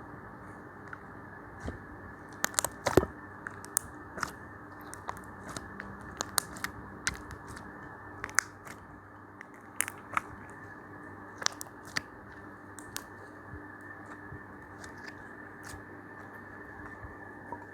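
Homemade slime being squeezed and worked by hand, giving scattered sharp clicks and pops, with a quick cluster of the loudest ones about three seconds in.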